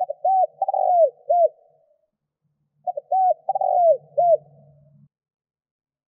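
Spotted dove cooing: two phrases of short, rolling, arched coos, the second starting about three seconds in, then a pause.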